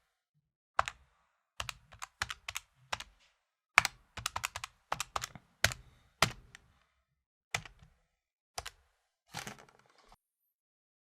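Calculator keys being tapped: single clicks and quick runs of presses at an uneven pace, ending about ten seconds in.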